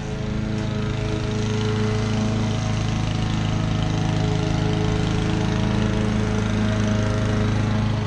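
Honda HRU216D self-propelled lawn mower's engine running steadily while mowing, growing a little louder in the first second or so.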